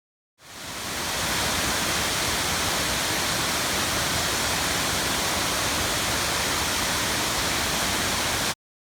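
Waterfall pouring: a steady, even rush of falling water that fades in over about a second and cuts off suddenly near the end.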